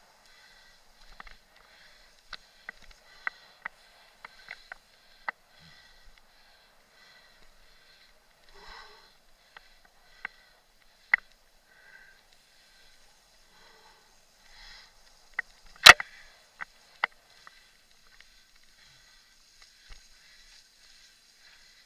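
Mountain bike riding a rough forest singletrack: scattered sharp clicks and knocks of the bike and camera mount rattling over bumps and roots, over a faint hiss, with the loudest knock about 16 seconds in.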